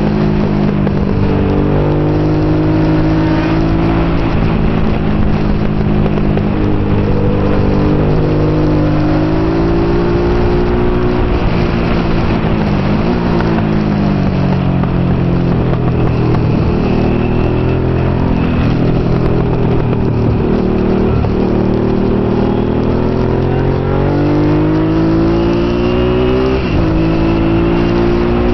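Honda NT650 Hawk GT's 647 cc V-twin engine heard from on board at racing speed. Its pitch climbs under throttle and drops sharply at each shift or when the rider closes off for a corner, over a constant rush of wind.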